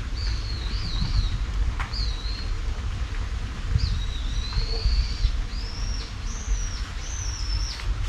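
A bird singing a series of high whistled phrases, some wavering, some short rising notes repeated near the end, over a steady low rumble. A single sharp click about two seconds in.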